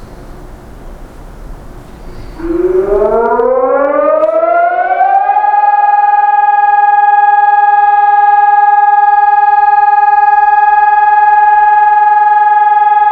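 Civil defence warning siren starting up during a test alarm: about two and a half seconds in it comes on loud, its pitch rises for about three seconds, then it holds one steady, piercing tone.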